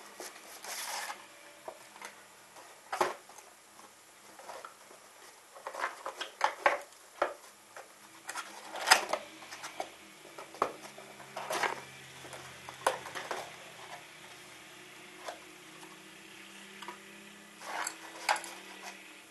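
Hands handling and opening a cardboard box: irregular scrapes, taps and rustles of cardboard. Near the end the coconut-fibre pots inside are handled.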